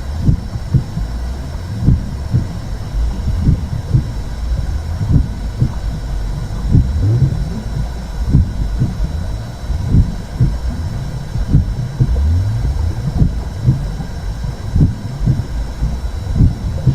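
Womb sound for calming a baby: a deep, steady whooshing rumble with slow, regular heartbeat-like pulses.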